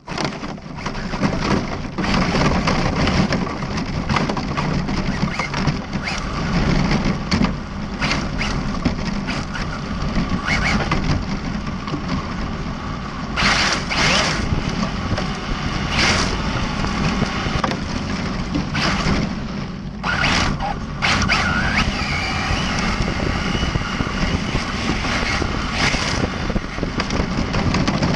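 ARRMA Felony 1/7-scale electric RC car driving on a gravel road: a steady crunching rush of tyres on loose gravel, broken by sharp knocks and clatters from stones and bumps, and a brief rising motor whine a little after two-thirds of the way through.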